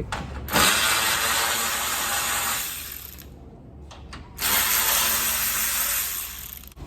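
A handheld power tool, such as a cordless drill or ratchet, running in two bursts of about two and a half seconds each with a short pause between them.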